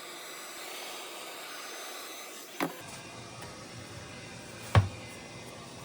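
Heat gun blowing steadily as it warms the screen adhesive, with two sharp knocks about two seconds apart, the second louder.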